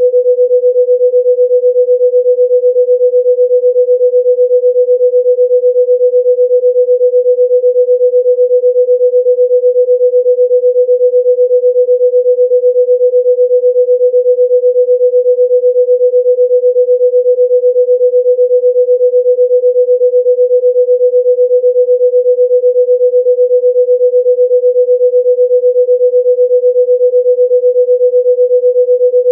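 A single steady, mid-pitched pure electronic tone, held unchanged: a sound-healing frequency tone.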